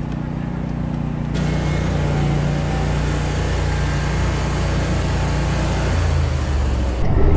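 A motor vehicle engine idling steadily. About a second and a half in, a wider rushing noise joins it. Just before the end it jumps abruptly to a louder engine sound.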